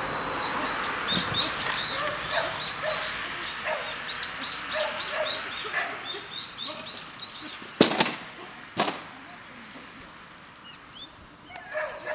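A small dog yipping and barking excitedly over and over, growing fainter. Two sharp knocks about a second apart come two-thirds of the way in.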